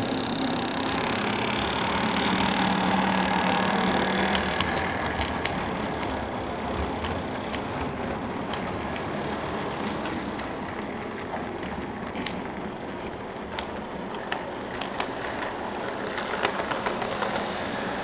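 HO scale Athearn F7 model diesel locomotive's motor and gears running as it passes close by, a steady whirring hum loudest in the first few seconds, then the train's wheels rolling on the track with light clicks near the end. The motor is newly oiled but still noisy in its break-in period.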